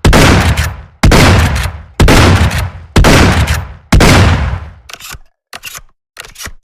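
Remington 870 pump-action shotgun firing five shots about a second apart, each with a long fading echo. About five seconds in it gives way to a string of short, quieter mechanical clicks and clacks of the gun being handled.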